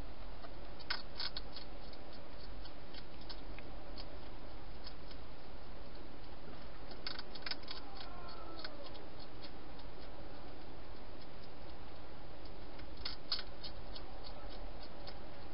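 European hedgehog crunching its food at a bowl inside a plastic feeding station: crisp chewing clicks in three short flurries and scattered single crunches between, over a steady hiss.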